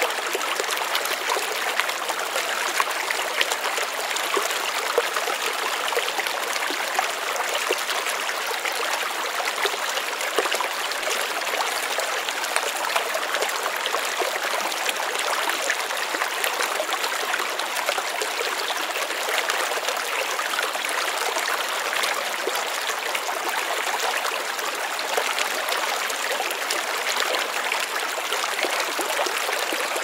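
Shallow stream running over rocks in a riffle: a steady rush of water with many small splashes and trickles throughout.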